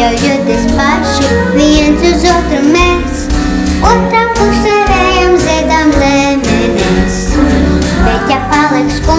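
A young girl singing a song with vibrato over instrumental accompaniment with a steady beat and bass.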